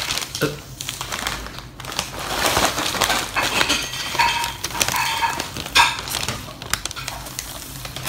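Paper wrapping of a takeaway fish-and-chips parcel crinkling and rustling as it is pulled open, with a few brief ringing clinks of plates about halfway through.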